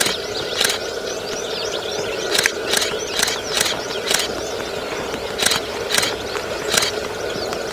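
Outdoor bush ambience: many small birds chirping, over a steady low drone, with about nine sharp clicks scattered through.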